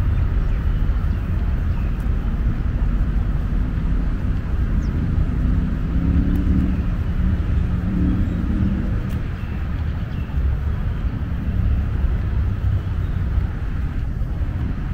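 Outdoor city-park ambience dominated by a steady low rumble of distant road traffic, with some faint pitched sound near the middle.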